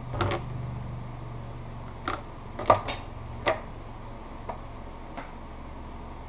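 Scissors snip the thread about a second in. Then come several sharp clicks and knocks, the loudest a little before the middle, as the stitched leather holster is pulled from the sewing machine and handled. A steady low hum runs underneath.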